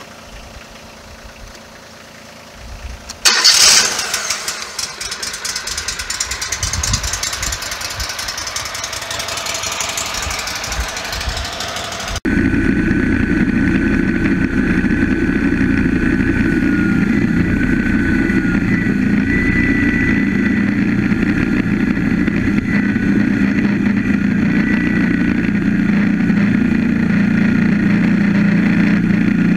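Woodmizer LT15 Go sawmill's gasoline engine starting about three seconds in, then running. About twelve seconds in, the sound jumps abruptly to a louder, steady run with a thin, wavering high whine above the engine.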